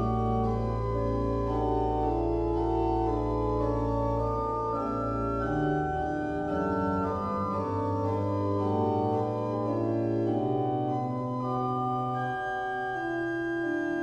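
Pipe organ playing a polyphonic piece: held chords with a moving upper melody over a deep sustained bass note, which drops out about four and a half seconds in, after which the lower voices move in shorter notes.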